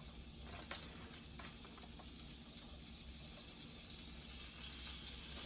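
Butter sizzling faintly in a hot skillet, a soft steady hiss that grows a little louder, with a few light clicks in the first second.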